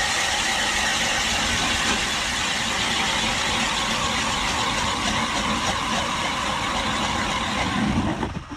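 Strikemaster 40-volt battery-powered 10-inch ice auger drilling a hole through lake ice, its motor running steadily as the bit cuts down through crusted snow and ice. The motor stops about eight seconds in.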